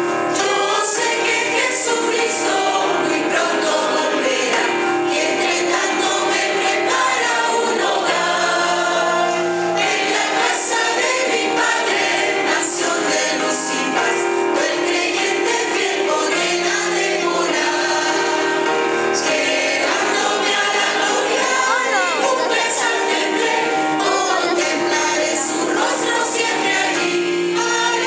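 Mixed church choir of women and men singing a hymn in Spanish, with sustained notes.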